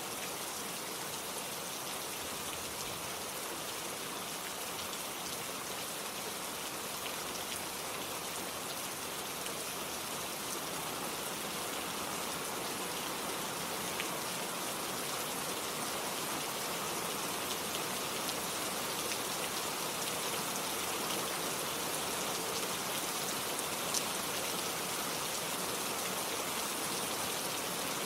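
Steady rain falling, an even hiss of drops with a few sharper drop ticks.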